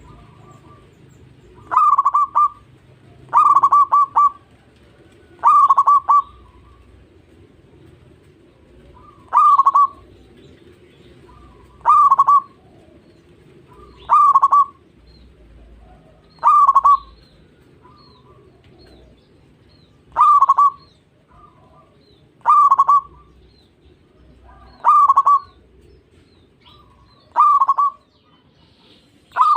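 Zebra dove (perkutut) singing: a short, quick stuttering coo phrase repeated about every two to three seconds, with a longer pause after the third phrase.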